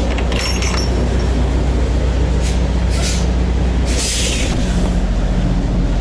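Semi truck's diesel engine idling steadily with a low hum, with a few short hisses around the middle.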